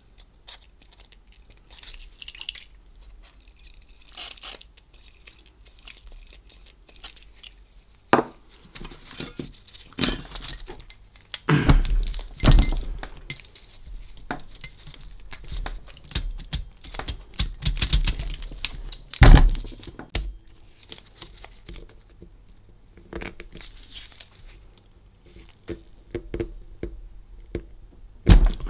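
Irregular metallic clicks, clinks and clunks from the mechanism of a Facit C1-13 mechanical calculator worked by hand, its jammed, stiff parts being forced to move. A few knocks stand out, the loudest a little past the middle and one near the end.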